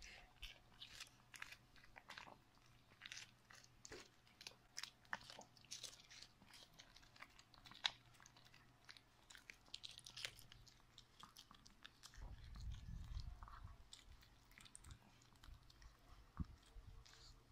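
Smooth-coated chihuahua chewing and licking watermelon: faint, irregular wet mouth clicks and smacks, with one sharper click about eight seconds in.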